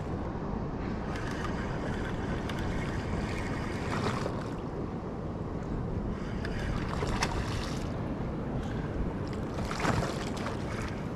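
Steady wind and water noise on a boat at sea. A splash comes about every three seconds as a topwater popper is worked across the surface.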